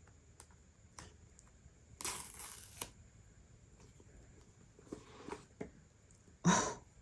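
Paper pull-tab seal strip being torn off a new iPhone box: one short rip about two seconds in. Soft handling clicks follow, then a brief rush of noise near the end.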